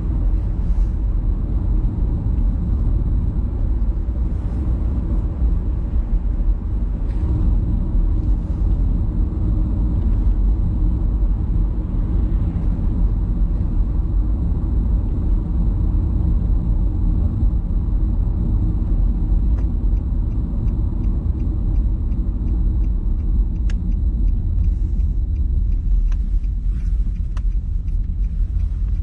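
Steady low rumble of a moving road vehicle, with a short run of light, even ticks past the middle.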